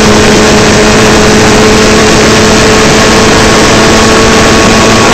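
Formula Ford race car's four-cylinder engine heard from the cockpit, running at a steady high pitch while the car travels at speed, with a constant rush of wind and road noise.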